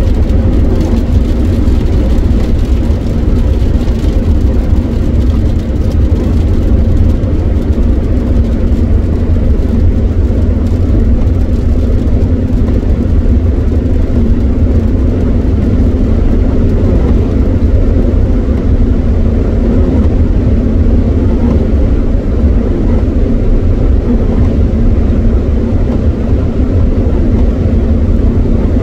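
Steady road noise of a car cruising at motorway speed on a rain-soaked road, heard from inside the cabin: a low, even rumble of tyres on wet tarmac with a faint steady engine hum.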